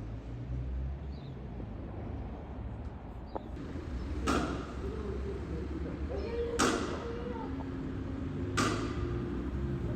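Steady low rumble of city background noise. From about four seconds in, four sharp bangs come about two seconds apart, each with a short ring after it.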